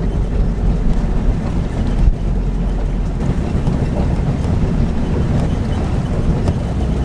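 Strong wind buffeting the microphone over the rush of water along a sailboat's hull as it sails through choppy seas, steady throughout, with a single knock about two seconds in.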